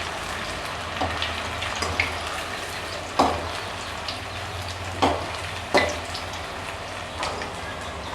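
Masala-coated cauliflower florets deep-frying in hot oil: a steady sizzle with sharp crackles now and then, the loudest three a little past the middle.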